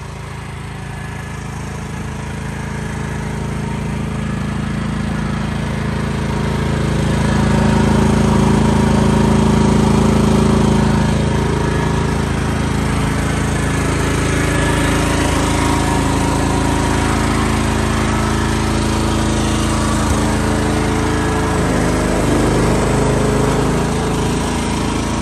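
The Briggs & Stratton gas engine of an AGT Industrial QH12 mini excavator running steadily, growing louder over the first several seconds. In the last several seconds its note wavers and shifts as the levers are worked.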